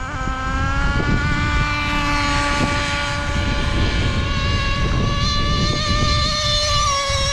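Traxxas Slayer Pro 3.3 RC truck's small nitro engine running at high revs, its high whine held nearly level for several seconds and easing a little near the end.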